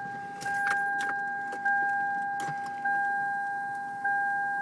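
A car's warning chime dinging, one clear tone struck four times about 1.2 seconds apart and fading between strikes, with keys jangling in the ignition.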